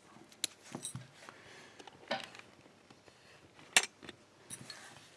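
Small metal tools and a brass lock being handled: a few sharp clicks and clacks, the loudest a little under four seconds in.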